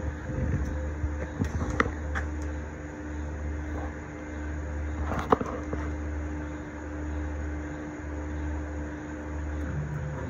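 CNC milling machine homing its axes: the axis drive motors run with a steady tone that stops near the end as the machine reaches home, over a low pulsing hum, with a sharp click about five seconds in.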